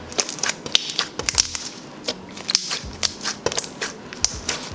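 Thick, glossy slime being pressed and played with by hand, giving a rapid, irregular run of small sticky clicks and air-bubble pops.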